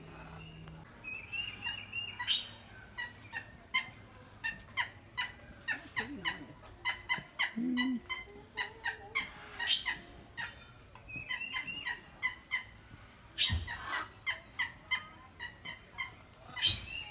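Parrots calling: a rapid run of short, sharp squawks and chirps, several a second, with stretches of warbling chatter.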